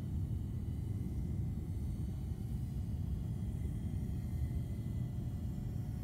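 Wind buffeting the microphone in a steady, choppy low rumble, with the faint hum of the Eachine Seagull's electric motor in flight, its pitch wavering up and down.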